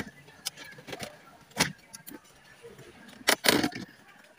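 Plastic dashboard trim being pried loose around a Nissan Patrol's stereo, its clips clicking and rattling: a sharp click at the start, scattered small clicks, then a louder clatter about a second and a half in and again just past three seconds.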